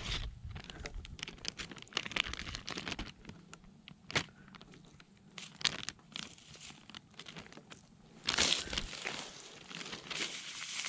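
Plastic zip-top bag crinkling and rustling as chicken pieces are handled into it, in many short rustles, with a louder burst of crinkling about eight seconds in.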